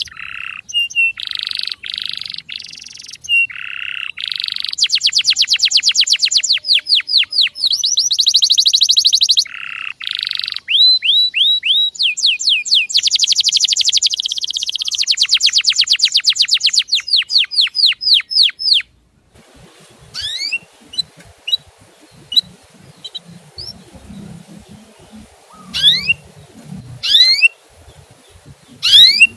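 Male canary singing a fast, loud song of rolling trills and rapidly repeated whistled notes, used as a tutor song for young canaries. About nineteen seconds in it cuts abruptly to a quieter recording with background noise and sparse, rising 'cuit' chirps.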